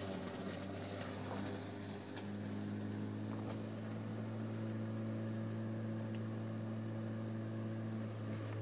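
A steady low motor hum, like an idling engine, running throughout; its pitch steps up slightly about two seconds in.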